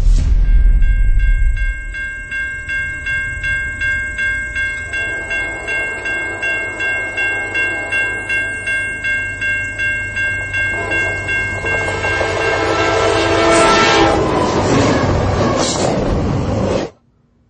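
Train sound: a held horn chord over wheels clacking on rail joints at about two and a half beats a second. The noise swells near the end, then cuts off abruptly.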